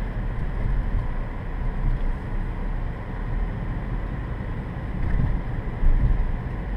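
Wind buffeting the microphone, a low rumble that swells and dips, over the steady sound of a car's idling engine.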